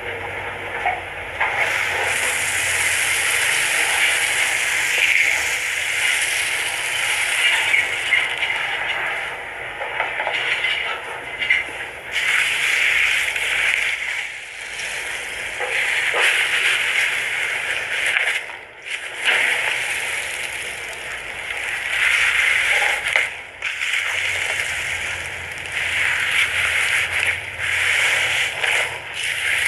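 Foam slime being squeezed and kneaded by hand: a continuous dense stream of tiny pops and crackles, broken by a few brief pauses.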